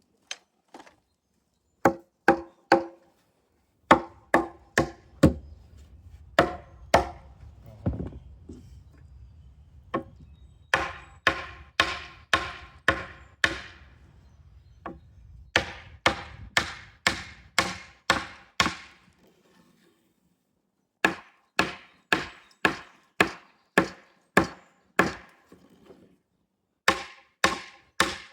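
Hammering on wood: runs of sharp blows, about two a second, each with a short ringing tone, pausing briefly twice. A low hum runs under the blows for the first half.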